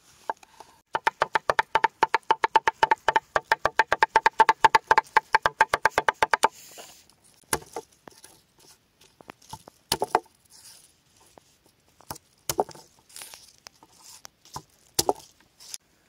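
Knife chopping quickly on a wooden cutting board, about eight strokes a second, as a bolete mushroom is diced. After about six seconds it breaks into scattered single knocks and light scraping as the diced pieces are gathered on the board.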